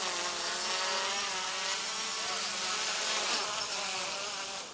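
Homemade 3D-printed quadcopter's electric motors and carbon-fibre propellers buzzing steadily as it comes down to land, the pitch wavering slightly with the throttle. The buzz cuts off abruptly at the very end.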